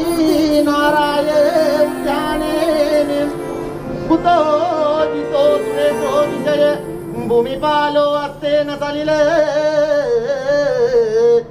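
Music with singing: a voice holds a wavering, ornamented melody over steady instrumental accompaniment.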